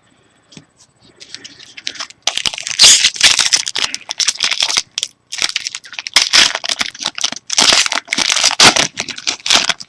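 A foil trading-card pack wrapper being torn open and crinkled by hand: loud crackly rustling that starts about two seconds in and comes in three long stretches with short breaks between them.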